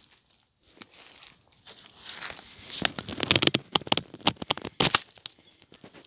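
Dry leaves, twigs and branches rustling and crackling irregularly as someone pushes through dense brush. The busiest stretch comes a few seconds in.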